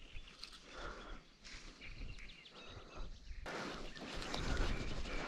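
Rustling handling noises as a freshly caught pike is held by gloved hands, its spinner lure taken from its mouth, and it is laid in the grass. The rustling grows louder about three and a half seconds in.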